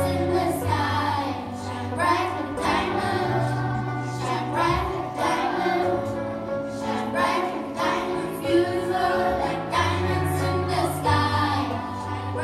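Group of children singing together over an amplified backing track, with a bass line moving in held notes and a steady beat under the voices.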